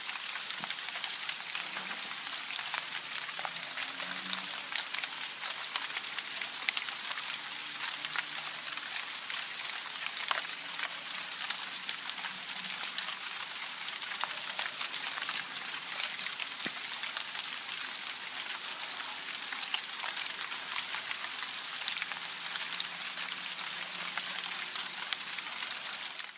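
Heavy rain falling steadily, with many separate drops ticking on surfaces. A steady high-pitched tone sounds alongside it.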